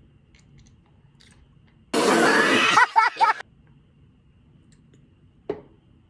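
A person loudly clearing their throat just after drinking milk from a bowl: a harsh rasp about two seconds in, ending in three short voiced bursts. A brief small throat sound follows near the end.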